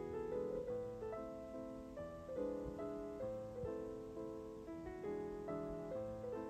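Quiet background piano music, a melody of notes changing two or three times a second.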